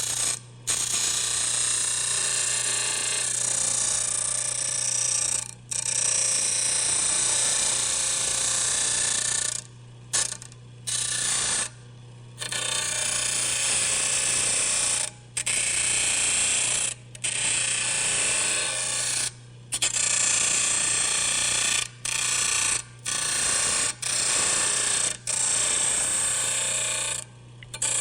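Wood lathe motor running with a steady low hum under a whirring, rattling mechanical noise. The noise cuts out abruptly and comes back about a dozen times, while the hum carries on through the breaks.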